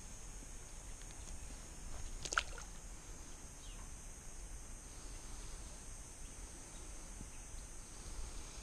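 Steady high-pitched insect chorus, with one sharp knock about two seconds in.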